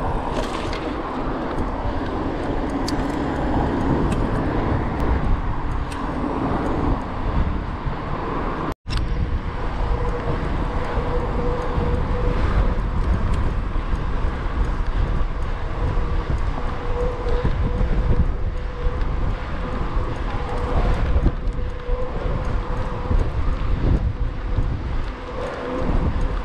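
Wind buffeting the microphone of a bicycle-mounted camera while riding, over a steady rumble of tyres on asphalt. The sound cuts out for an instant about nine seconds in, and a faint steady whine comes and goes in the second half.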